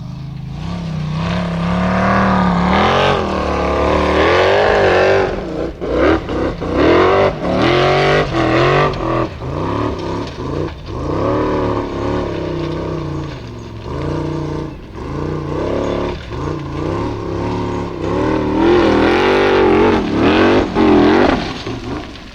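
Formula Offroad buggy's engine revving hard over and over, its pitch climbing and falling with short lifts off the throttle.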